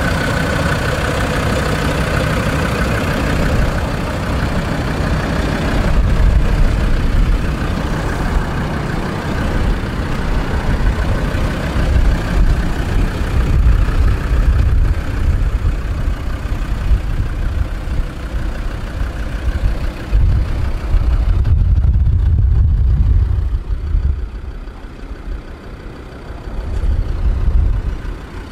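A Land Rover Discovery 2's 2.5-litre inline five-cylinder, 10-valve turbodiesel (Td5) running, its level swelling and falling back several times, with the sound growing duller in the last few seconds.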